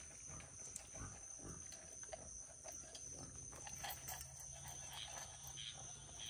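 Faint sounds from a pen of emus, alpacas and goats crowding around feed: a low steady rumble starting about halfway through, with light scuffing and scattered clicks.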